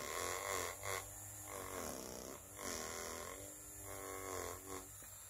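Faint, drawn-out throaty sounds with a wavering pitch from a man straining to force out a burp that does not come.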